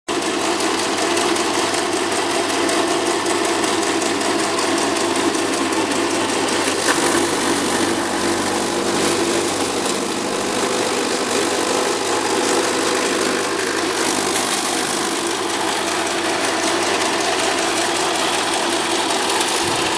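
Motor-driven chaff cutter (fodder chopping machine) running steadily, its 2 HP motor and four-blade cutter head spinning.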